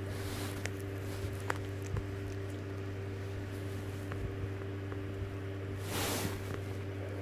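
A cat and a small dog licking each other, with small wet clicks and smacks of tongues on fur, over a steady low electrical hum. A short noisy burst comes about six seconds in.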